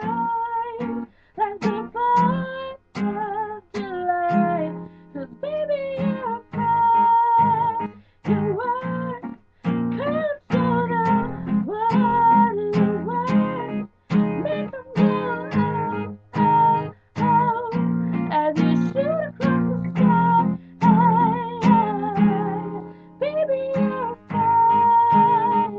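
A woman singing to her own strummed guitar, holding long notes with a wavering vibrato over steady strums.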